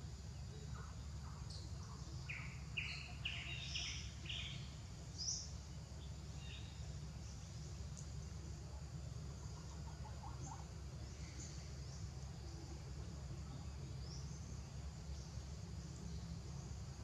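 Outdoor ambience: scattered short bird chirps, with a burst of them between about two and five seconds in, over a steady low rumble.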